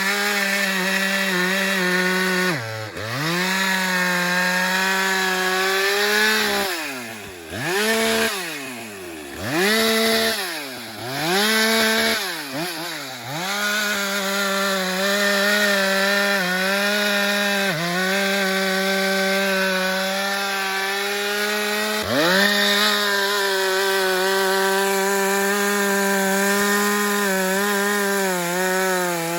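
Husqvarna 394 XP two-stroke chainsaw running at high revs, cutting wood. Several times in the middle the throttle is let off and opened again, so the engine note falls sharply and climbs back.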